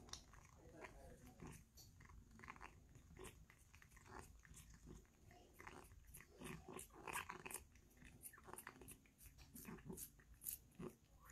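A cat licking paste from a lickable treat tube held to its mouth: a quick run of small, irregular licking and smacking clicks.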